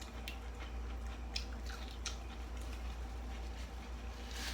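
Close-miked eating: crisp bites and chewing of sweet corn on the cob, with a few sharp crunchy clicks about a third of a second, one and a half and two seconds in. A steady low hum runs underneath.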